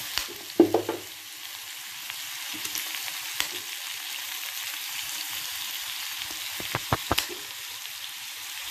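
Carrot pieces frying in oil in a kadai, a steady sizzle. Over it come a few sharp cracks from a knife slicing through raw carrot held over the pan, the loudest about a second in and a cluster of them near the end.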